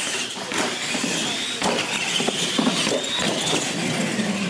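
Two R/C monster trucks launching side by side in a drag race, their electric motors and gears whining and climbing in pitch over the first three seconds as they accelerate across the floor.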